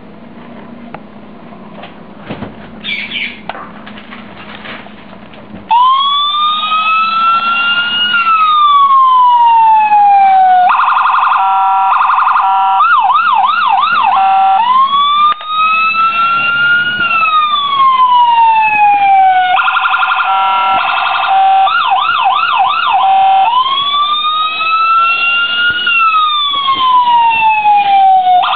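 Electronic police siren cycling through its tones, starting about six seconds in after two short high chirps. Each cycle is a slow wail rising and falling, then a fast pulsing warble, then a quick yelp of rapid up-and-down sweeps. The cycle comes round three times.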